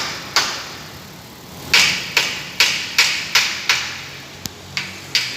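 Repeated sharp knocks, about ten in an uneven rhythm, each with a brief ringing tail, with a gap of about a second early on.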